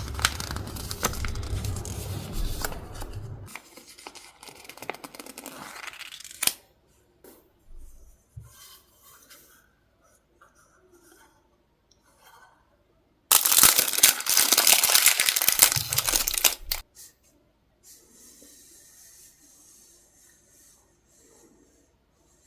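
Paper being handled and torn: a long stretch of crackling and tearing, a quieter pause with small rustles, then a loud burst of tearing about two-thirds of the way through, followed by faint paper handling.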